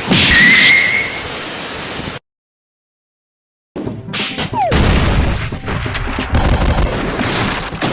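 Cartoon soundtrack sound effects: a loud noisy blast with a high held tone, then a sudden dropout to dead silence about two seconds in. After a second and a half the sound resumes with a falling tone and a rapid run of bangs and crashes over music.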